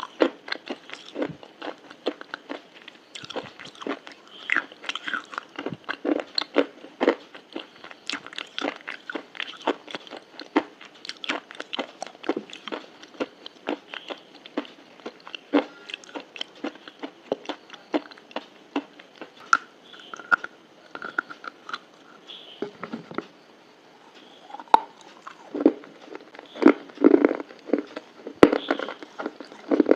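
Close-up crunchy biting and chewing of crisp food: a continuous irregular run of sharp crackling crunches, with a few louder crunches near the end.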